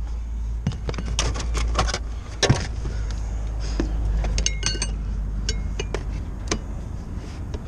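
Metal tools clanking and clinking as they are handled, a string of sharp knocks, some leaving a brief metallic ring, over a steady low rumble.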